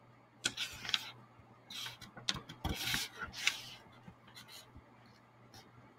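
A book page being turned by hand, paper rustling and rubbing in several short scrapes over the first three seconds or so, then only a few faint ticks.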